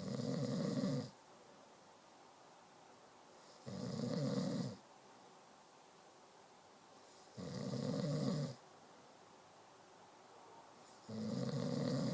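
Snoring in a steady rhythm: four snores, each about a second long, coming roughly every three and a half seconds with quiet breathing gaps between.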